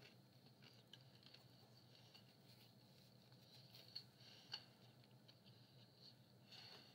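Near silence, with faint quiet chewing and a few small mouth clicks, two of them a little sharper about four seconds in.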